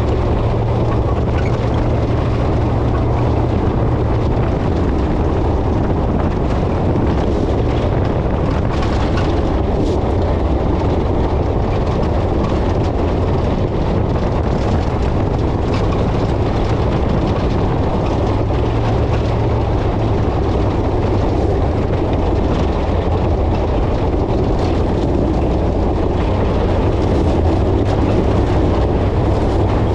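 GMT800 pickup truck being driven off-road through a wash: a steady engine drone whose pitch shifts a little up and down, over continuous rumbling tyre and chassis noise.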